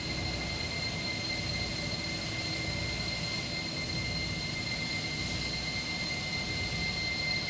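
CNC machine running steadily while cutting brass, a constant high whine over a hiss of machine noise.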